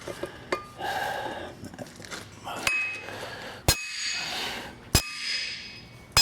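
Two-pound hammer striking a steel drift to drive a wheel stud into a Chevrolet 3500HD rear hub until it bottoms out. There are a couple of lighter taps, then three sharp blows about a second apart, each followed by a metallic ring.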